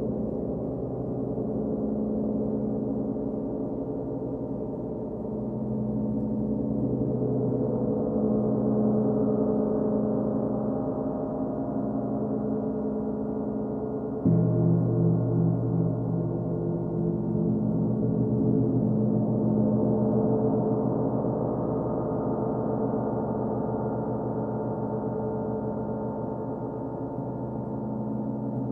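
Large hanging gongs, one a Paiste, played with soft mallets: a continuous swelling wash of many overlapping sustained tones. A sudden louder, deeper tone comes in about halfway through.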